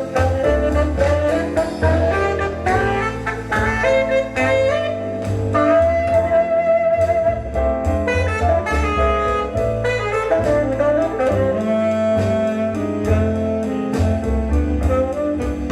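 Instrumental jazz break with a lead melody over bass and drums, played back through a feastrex NF-9eβ field-coil full-range loudspeaker driver.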